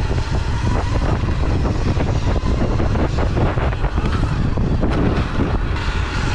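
Wind buffeting the microphone while a Sur-Ron electric dirt bike rides over a bumpy dirt and grass track, its chassis and suspension rattling over the rough ground. A thin electric-motor whine sits underneath and shifts higher near the end.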